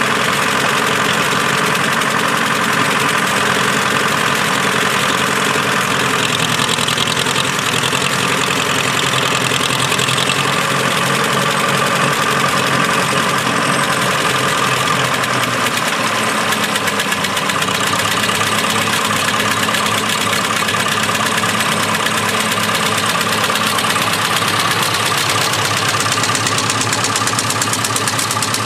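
1957 Ferguson FE-35 tractor's four-cylinder engine idling steadily.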